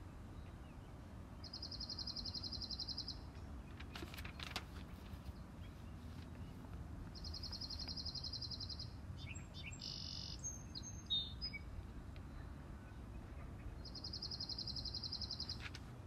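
Garden birdsong: a small songbird repeats a fast, even trill on one high pitch three times, each about a second and a half long and roughly six seconds apart. Between the second and third trills another bird gives a quick run of varied chirps, all over a steady low background rumble.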